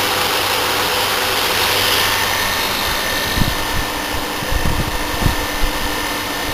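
Braemar half-ton window air conditioner running on test: a steady whir and hum of fan and compressor, with a thin high whine that sets in about two seconds in and irregular low thumps in the second half. Its coil is frosting up, which the owner puts down to lack of airflow rather than a low gas charge.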